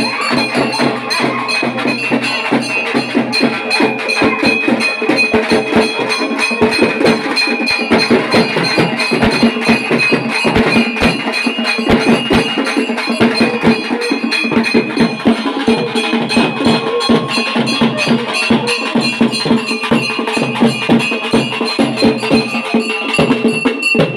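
Fast, continuous festival drumming, many rapid strikes on drums played in a crowd, with a steady high tone held over it throughout.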